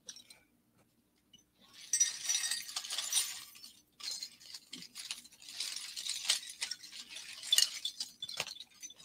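Metal fashion jewelry clinking and rattling as it is rummaged through and handled, starting about two seconds in, pausing briefly just before four seconds, then going on in a busy, jingly clatter.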